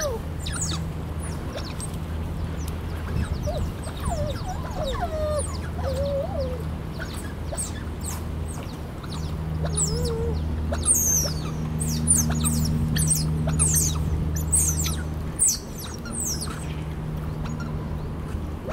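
A family of smooth-coated otters chirping and squeaking as they swim together: many short, high, falling chirps, coming thickest and loudest in the second half. A steady low hum runs underneath.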